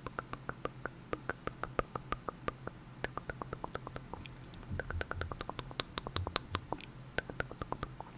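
Close-miked ASMR mouth sounds: a rapid run of short tongue and lip clicks ('tk tk'), several a second, made right against a small clip-on microphone, with a few soft low bumps around the middle.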